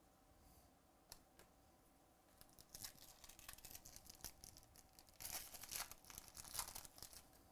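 Foil trading-card pack being torn open by hand: crinkling of the wrapper, then a louder run of tearing and crinkling from about five seconds in.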